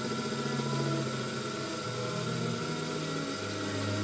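Proxxon PD 250/e mini lathe running steadily while its tool faces the end of an aluminium round bar, a constant machine whine over a steady hiss.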